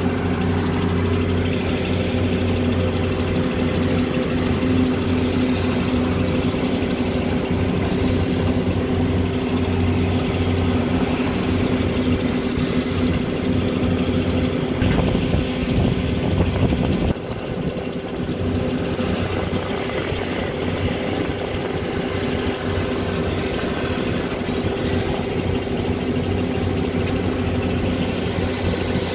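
Volvo EC210 BLC excavator's six-cylinder diesel engine running steadily under working load, with a steady hum. A louder, rougher stretch around 15 seconds in stops abruptly about 17 seconds in.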